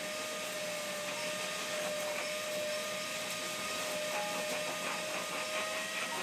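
A small motor running steadily: one constant whine over an even rushing hiss of air.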